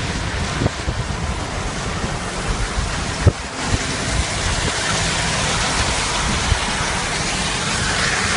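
Steady heavy rain hissing, with wind buffeting the microphone in uneven low rumbles. There is a sharp knock about three seconds in.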